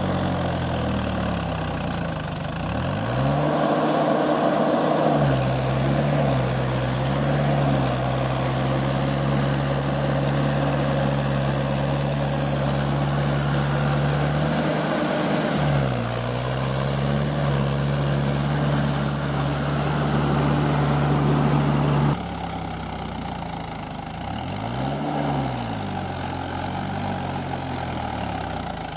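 Mahindra tractor's diesel engine running under load as its steel cage wheels churn through flooded paddy mud, with water splashing. The engine speed dips and picks up again a few times, and the sound changes abruptly about three quarters of the way through.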